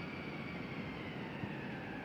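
Electric drive motor of a self-driving RC car running, a steady high whine over a hiss. The whine sinks slowly in pitch as the car eases its speed.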